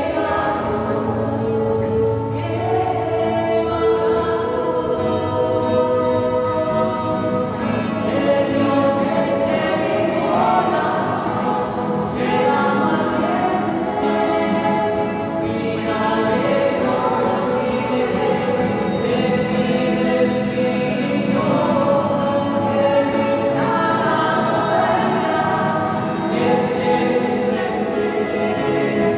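Choir singing a hymn, several voices together on sustained, changing notes.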